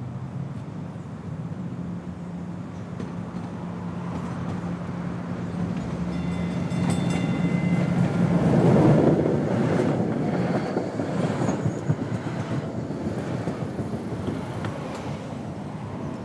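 A large vehicle passing. A steady low hum builds to a peak about nine seconds in and then fades, with a brief high squeal shortly before the peak and a few clicks afterwards.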